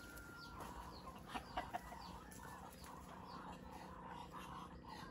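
Chickens clucking, with three louder clucks in quick succession about a second and a half in, among higher chirps of other birds.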